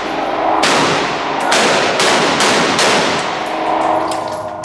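A string of rifle shots from a 5.56 mm semi-automatic rifle, roughly one a second, each followed by a ringing echo off the walls of an indoor range. The shots are loud.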